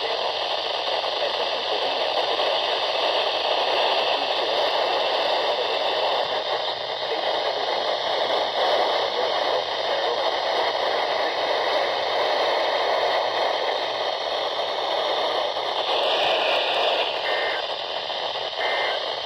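Weather radio receiver hissing with steady static and no broadcast voice coming through. Near the end there is a brief change in the hiss and two faint short blips.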